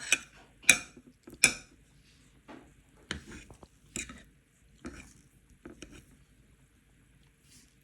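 Cutlery clinking and scraping against a plate, several sharp clinks near the start, then softer scattered taps that die away.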